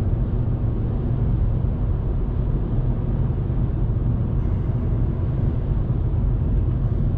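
Steady in-cabin drone of a 2019 Volkswagen Polo with a 1.0-litre turbocharged three-cylinder engine driving at an even speed: a low engine hum under tyre and road noise.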